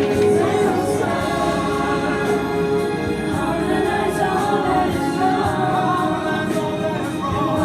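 Choir singing a song with musical accompaniment.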